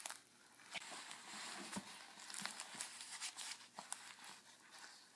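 Faint rustling with scattered small clicks and taps.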